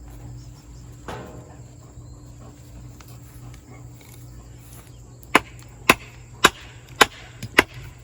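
Wooden 2x2 stake being hammered into garden soil: five sharp wooden blows about half a second apart in the second half, after a softer knock about a second in.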